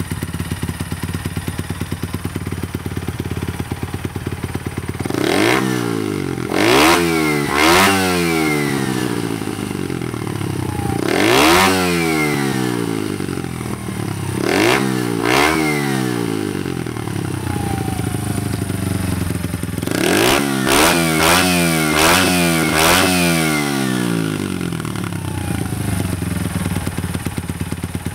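Honda Monkey's single-cylinder four-stroke engine, bored up to 88cc with a Shift Up kit and breathing through a Yoshimura Monster Tail cyclone muffler, idling and then revved with sharp throttle blips that each fall back to idle. Single blips come every few seconds, then a quick run of them about twenty seconds in, before it settles back to an even idle.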